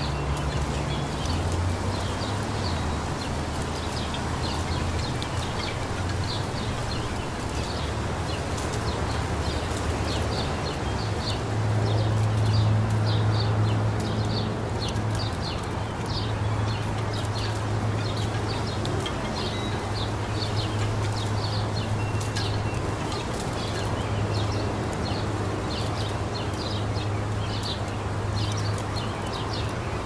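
Small songbirds chirping in many short, high notes over an even rustle of breeze through leaves, with a steady low hum underneath.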